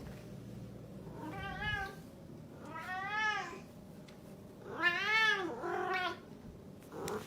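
Domestic cat meowing four times, each call rising then falling in pitch; the third is the loudest and a shorter fourth follows it closely.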